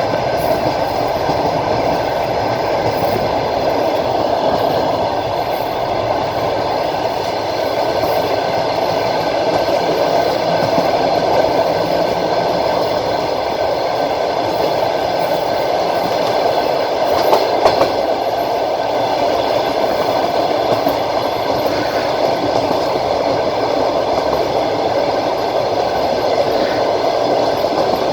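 Passenger train running steadily along the line, heard from a carriage window: the continuous rolling noise of wheels on rails, with a brief louder clatter about 17 seconds in.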